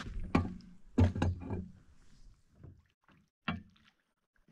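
A few sharp knocks and thuds: several close together in the first second and a half, and one more about three and a half seconds in.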